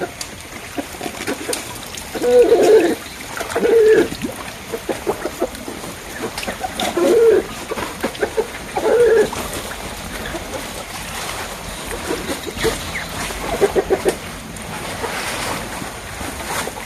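Water splashing and sloshing as a person wades in a muddy pond, hauling up a submerged fine-mesh fish net. About five short, low calls stand out above it, the loudest sounds.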